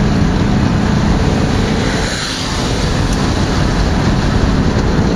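Steady engine drone with wind and road noise from a vehicle travelling at speed, easing slightly for a moment about two seconds in.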